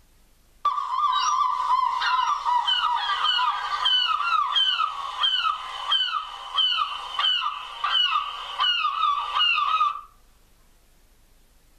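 A flock of seagulls calling: many overlapping cries, starting abruptly just after the start and cutting off abruptly near the end.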